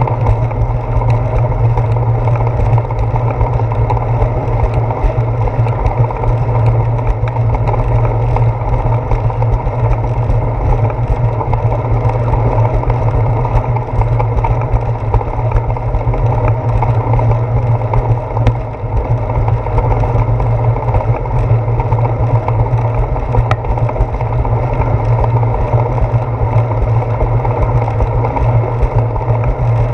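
Steady, loud rumble of wind and road vibration picked up by a handlebar-mounted GoPro Hero 4 in its housing as a bicycle rides along a wet concrete sidewalk, with faint ticks scattered through it.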